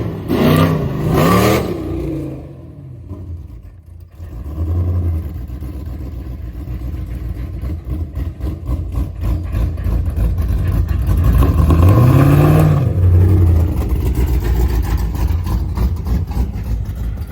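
Pontiac G8's engine running with a newly installed big cam: a few quick throttle blips at the start, then a lumpy, choppy cammed idle, with one more rev about twelve seconds in.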